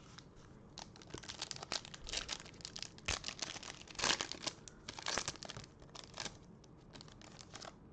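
A trading-card pack's plastic wrapper being torn open and crinkled in the hands, in a run of irregular crackles.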